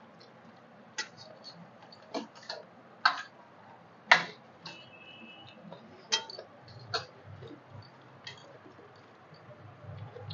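Eating by hand from stainless-steel plates: irregular sharp clicks and clinks of fingers and a steel spoon against the plates and bowl, mixed with mouth sounds. The loudest clink comes about four seconds in, and one clink rings briefly.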